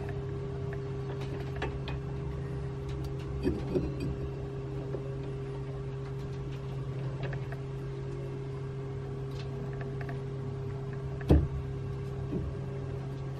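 Metal clicks and knocks as a large ductile cast iron pipe is handled and seated in a lathe chuck, with one sharp metallic knock about 11 seconds in. A steady low hum runs underneath.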